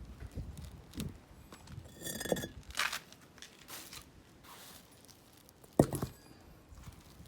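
Scattered clicks and knocks of objects being handled, with a brief ringing clink about two seconds in and one sharp, loud knock near the end.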